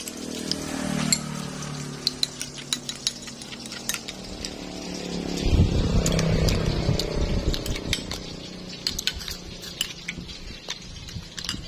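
Metal spoon stirring a wet sauce in a small ceramic bowl, with many sharp clinks of the spoon against the bowl. A low rumble swells and fades around the middle over a steady low hum.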